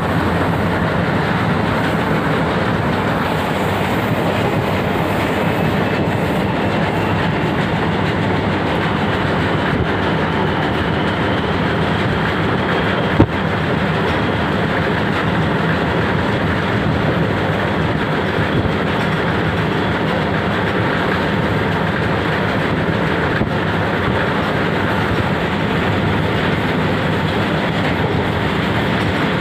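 Steady running noise of a moving train heard from inside the carriage, wheels rolling on the rails, with one sharp knock a little under halfway through.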